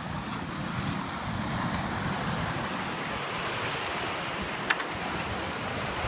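Sea waves breaking and washing over rocks at the shoreline, a steady heavy rush with wind buffeting the microphone. A single sharp click stands out about three-quarters of the way through.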